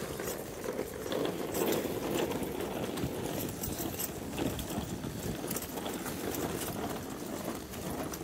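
Small wheels of a folding hand trolley rattling steadily over tarmac as it is pulled along.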